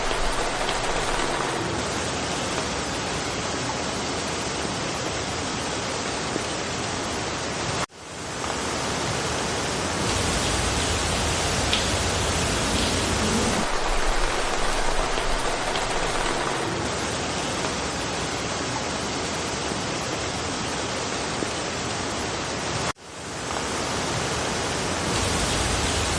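Steady, even rain falling, a continuous hiss with no distinct drops standing out. It cuts out abruptly twice, about fifteen seconds apart, and swells back in within a second or so.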